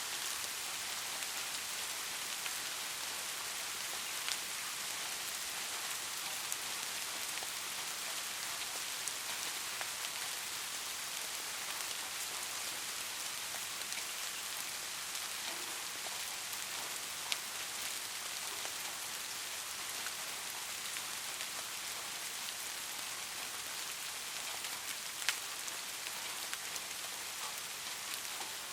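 Steady rain falling, an even hiss with a few louder single drops ticking now and then.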